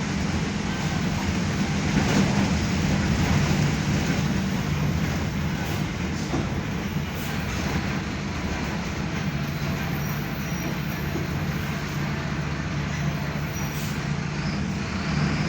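Mercedes-Benz OF-1519 BlueTec 5 bus's diesel engine running as the bus drives, a steady engine drone under road and body noise. The engine note eases off briefly about halfway through, then picks up again.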